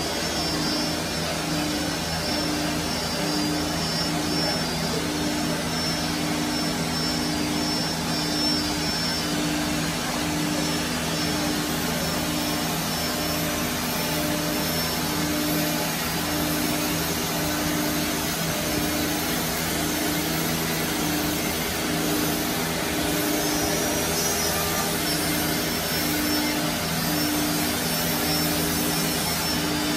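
Holztek R1325-R4 four-spindle CNC nesting router working a board panel, its spindles and dust extraction running together as a steady whirring noise. A low hum in it wavers about once a second.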